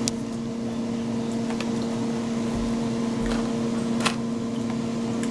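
Steady electrical hum of a running appliance, holding one low tone and a higher one over a faint rushing noise, with a few faint ticks.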